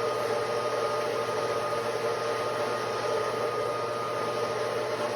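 Bandsaw running and cutting through a 1/2 inch square cold-rolled steel key-stock bar: a steady mechanical hum and hiss with a constant whine over it.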